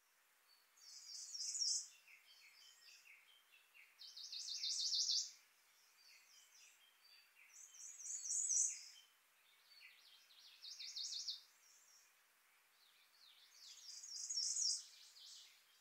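A songbird singing five short, loud phrases of rapid high notes that swell to a peak, one about every three seconds, with softer twittering between the phrases.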